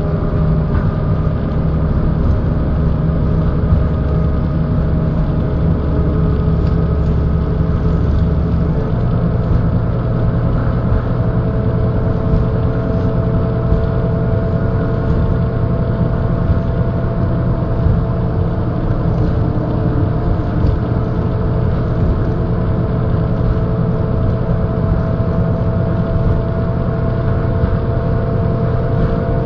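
1995 Mercedes-Benz O408 bus under way, its OM447hLA diesel engine running steadily with a change in its low note about nine seconds in. Over it the hub-reduction axle gears whine, the pitch rising slowly as the bus gains speed.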